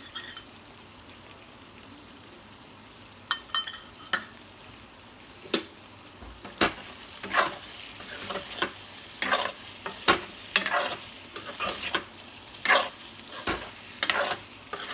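Chicken liver and gizzard frying in a kadhai with a low sizzle, a few separate knocks of the spatula on the pan, then from about six seconds in the spatula stirring and scraping the pan in repeated strokes, roughly once or twice a second. The spice mix is being fried down until it is dry.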